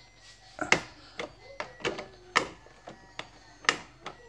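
A string of sharp plastic clicks and knocks, uneven and about two a second, three louder than the rest, as the tap lever of a Sub home beer dispenser is pushed and worked. The lever does not latch: its catch seems to have nothing to clip into.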